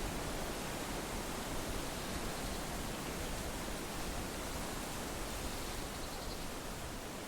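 Steady wind blowing through leaves: an even rustling hiss with no tune, beat or separate sounds.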